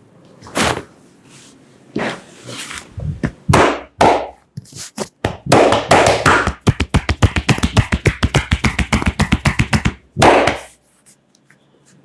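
A barber's hands striking the body in percussive massage: a few separate slaps, then a fast, even run of chopping strikes, about eight a second, for some four seconds, ending in one hard slap.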